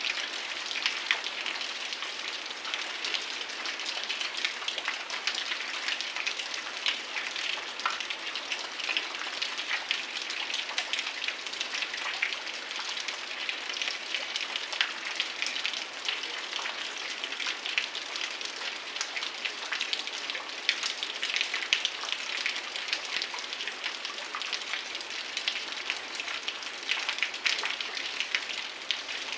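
Heavy rain falling steadily, a dense patter with many individual drops ticking sharply close by.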